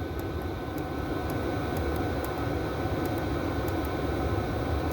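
Chinese 12 V 5 kW diesel parking heater running at high output: a steady, loud roar from its burner and blower fan, with faint ticks about twice a second.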